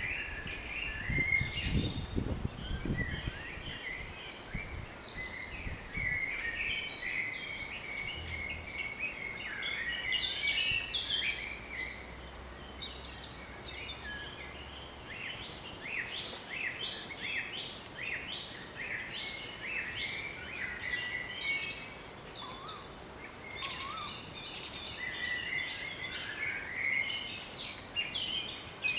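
Several songbirds singing at once, a steady chorus of overlapping chirps, trills and short whistles. A few low gusts of wind rumble in the first three seconds.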